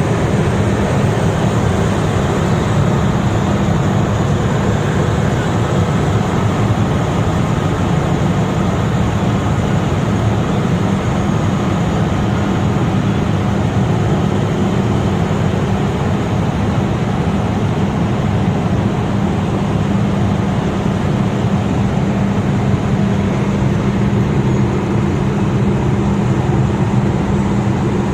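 Heavy construction machine's diesel engine running steadily, with a constant low hum under broad mechanical noise.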